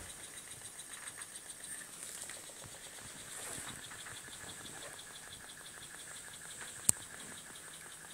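Small homemade Stirling engine with a brass-tube piston and test-tube hot cylinder running, making a rapid, even ticking several times a second as the car rolls. A single sharp click about seven seconds in.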